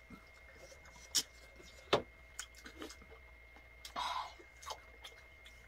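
Faint chewing and mouth smacks of people eating, with a few short sharp clicks, the loudest about two seconds in.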